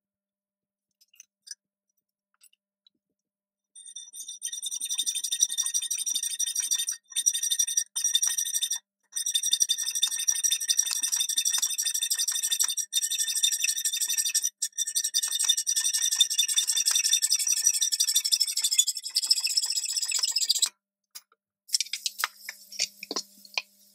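Hacksaw cutting a steel flat bar clamped in a metal vise: fast back-and-forth strokes with a high ringing squeal from the metal, paused briefly a few times. Near the end a few sharp metallic clinks as the cut piece is handled.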